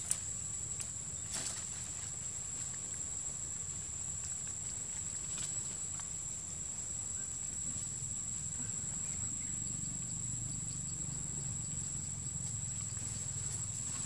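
Steady high-pitched drone of forest insects, with a few faint clicks and rustles, a sharper click at the very start.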